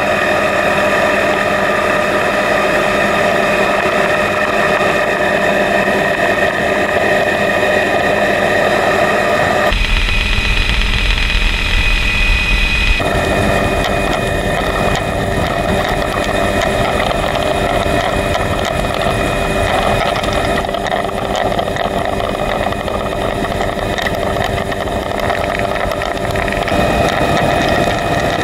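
Helicopter cabin noise on an open-door flight: steady turbine whine and rotor drone with wind rush. About ten seconds in there are a few seconds of heavier low rumble and hiss.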